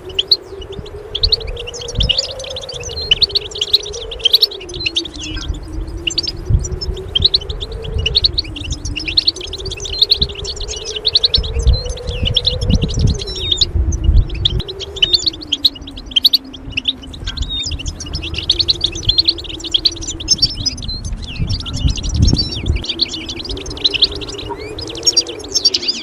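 Goldfinch song: dense, rapid twittering and chirps throughout, over a low hum that slowly wavers up and down, with low rumbles now and then.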